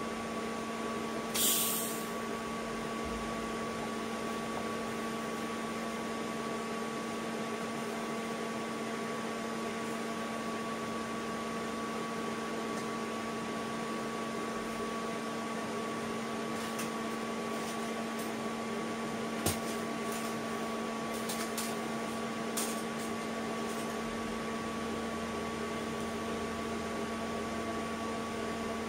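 TIG welding machine switched on and idling with a steady electrical hum, with a short hiss about a second and a half in and a few faint clicks later on.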